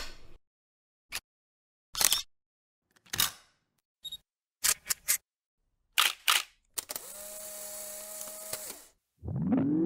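Camera shutter clicks used as title sound effects: a series of separate clicks, some coming in quick pairs and threes. Then comes about two seconds of steady hiss with a faint hum, and near the end a rising swoop.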